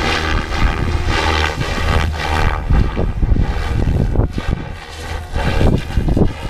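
SAB Goblin 570 electric RC helicopter flying past, its rotor and motor whine strong for the first couple of seconds and then fading as it moves away. Wind rumbles on the microphone.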